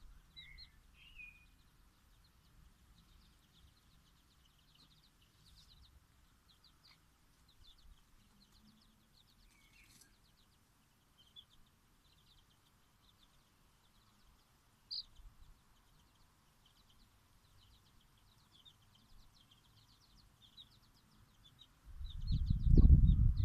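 Bantam chicks cheeping softly in faint, quick high chirps, with a few longer downward peeps among them. Near the end a loud low rumble on the microphone covers them.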